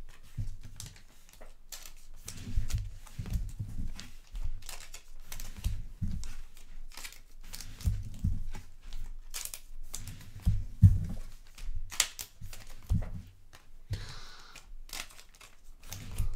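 Wrappers of 2021 Donruss baseball card packs being torn open and crinkled, with irregular crackling and soft knocks from the packs and cards being handled.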